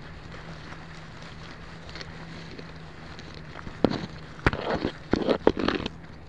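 A camera taped to a box turtle's shell picks up a steady low hum, then about four seconds in a sharp knock and a two-second run of knocking and scraping as the shell and camera housing bump and scrape against grass and concrete while the turtle tips over the curb edge.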